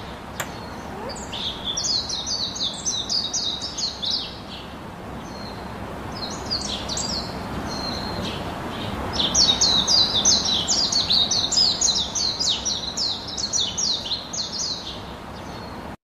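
Caged budgerigars chirping: quick runs of short, high, falling chirps in several bouts, the longest and loudest from about nine seconds in until near the end. A single sharp click sounds just after the start.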